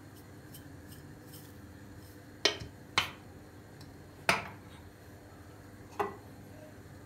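Four sharp clicks and knocks of kitchen items being handled and set down on the countertop. The strokes come about two and a half seconds in, half a second later, again past four seconds and once near the end.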